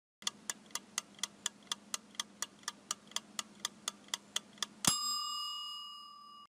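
Countdown timer sound effect: a clock ticking about four times a second, then a single bell ding about five seconds in that rings on and fades away as the time runs out.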